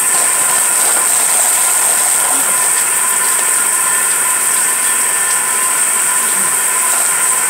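Handheld hair dryer running steadily: a loud, even hiss with a steady whine from its motor.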